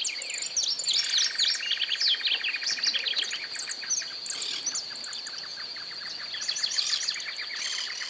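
Field recording of birds chirping and calling: many short, varied chirps and whistles, over a steady high-pitched whine and, from about a second in, a fast, even run of pulsing ticks.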